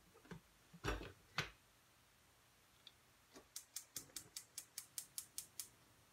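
Two knocks of a lid being set on a metal cooking pot, then a gas stove's spark igniter clicking rapidly, about six clicks a second for two seconds, as the burner knob is turned to light the flame.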